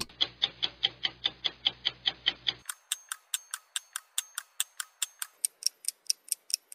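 Clock-like ticking in the dance track's backing, about five even ticks a second with no melody or voice. A low hum under the ticks drops out about two and a half seconds in, and the ticks turn brighter and sharper.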